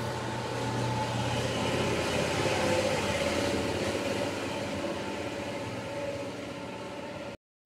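Steady engine-like drone of a passing vehicle, growing louder about two to three seconds in and then easing off, until it cuts off suddenly near the end.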